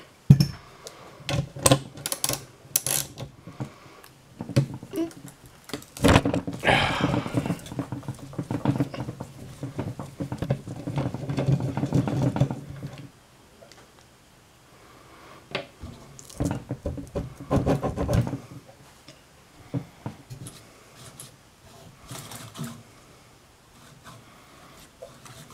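Socket wrench with a 13 mm socket on an extension, working a fan-bracket bolt loose. Scattered sharp metal clicks, then a long spell of fast, even ratchet clicking from about six to thirteen seconds in, a shorter spell around sixteen to eighteen seconds, and light taps after.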